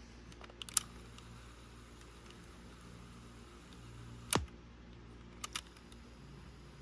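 A Sony WM-FX28 Walkman playing a cassette, its audio a faint low hum because the tape runs too slowly. Three sharp clicks, the loudest about a second in and just past four seconds, stand out over it.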